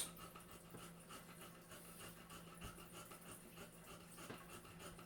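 Near silence: room tone with a faint steady low hum and faint quick, rhythmic breaths.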